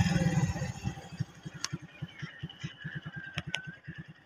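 Motorcycle engine running at low revs, its firing pulses slowing and growing fainter, with a few sharp clicks about one and a half and three and a half seconds in.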